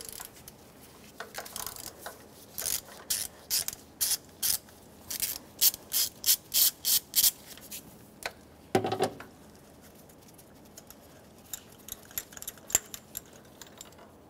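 Hand ratchet clicking as it turns a spark plug socket on an extension, backing a spark plug out of the engine; a run of pawl clicks that quickens about five seconds in. A short thud about nine seconds in, then a few scattered clicks.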